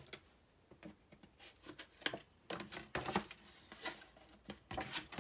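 Paper rustling with light taps and knocks as a handmade paper envelope is handled and turned over on a cutting mat; a string of short, irregular noises, busiest in the middle and near the end.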